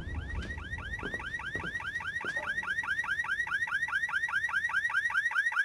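Car alarm warbling, a fast rising-and-falling chirp repeated about five times a second, with a few faint knocks under it in the first couple of seconds.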